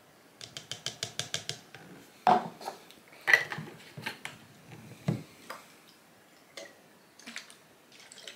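Plastic measuring jug, cap and SodaStream bottle handled on a wooden table: a quick run of about ten light clicks, then two sharp knocks a second apart, then smaller taps and clicks as the cap is screwed on and the bottle is tilted.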